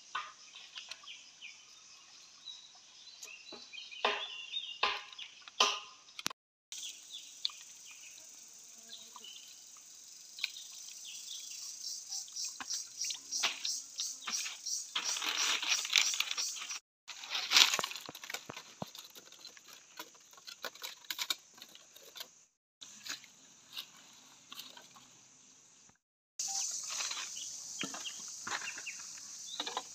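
Close handling sounds: wet rice grains pattering and clicking as they are packed by hand into a green bamboo tube, with scattered taps and rustles of dry sticks. A steady high hiss runs underneath.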